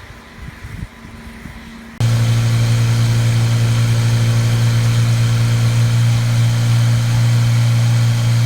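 An engine running steadily at constant speed, with a strong low hum and steady overtones, that cuts in abruptly about two seconds in. Before it there are only quieter, scattered sounds.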